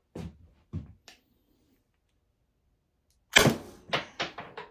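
A Byrna LE .68-calibre CO2 launcher fires one shot about three and a half seconds in, a sharp pop followed by a quick run of sharp clacks. A few faint handling clicks come before it.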